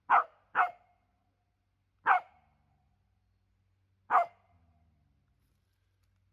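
A dog barking four times: two quick barks close together, then one about a second and a half later, then one more about two seconds after that.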